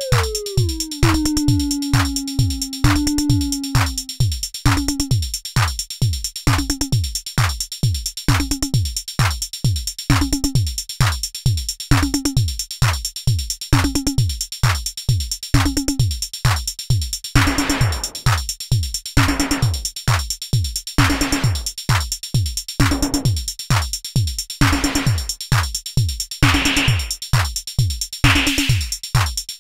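AVP Synth ADS-7 analog drum synthesizer playing a programmed pattern over a steady kick drum beat. A pitched drum tone glides down in pitch over the first couple of seconds as a knob is turned, then sounds at a fixed pitch about once a second. From a little past halfway, a noisy snare- or clap-like hit joins every couple of seconds.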